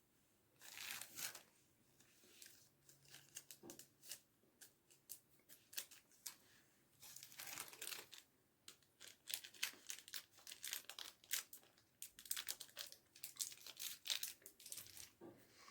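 Candy wrapper being handled, crinkling and tearing in quick irregular crackles, in clusters with short pauses between.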